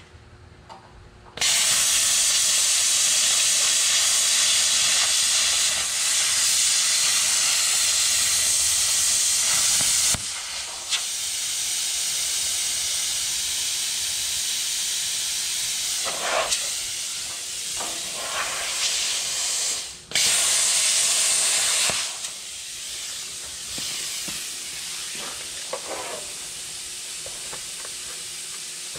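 Cutting torch hissing steadily as it cuts through a steel truck frame bracket, starting about a second and a half in. The hiss wavers, breaks off for a moment around twenty seconds, and after a short burst settles to a quieter steady hiss.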